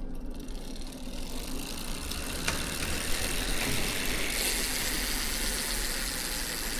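Mavic Ksyrium rear wheel's freehub clicking as the wheel spins freely, a fast, even ratcheting buzz that gets louder about four seconds in. The rider calls it a sticky hub.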